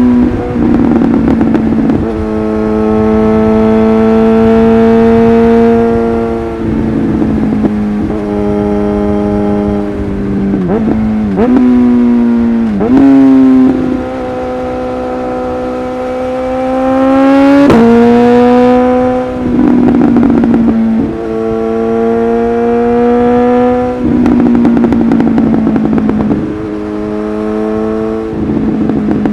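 Suzuki GSX-S1000's inline-four engine through a LeoVince exhaust, under way: repeated pulls with the pitch climbing, each cut off abruptly by a quickshifter gear change with a pop from the exhaust. A longer, louder pull about two-thirds of the way through builds to the highest pitch before its shift.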